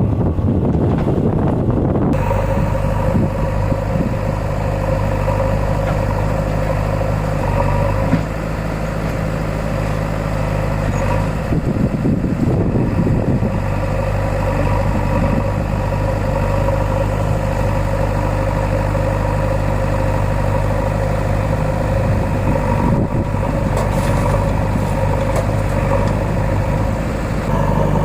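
Mahindra Arjun 555 tractor's diesel engine running at a steady, even speed, with a gust of wind on the microphone in the first couple of seconds.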